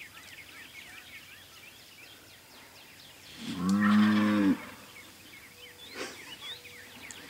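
A cow moos once, a single call about a second long starting halfway through.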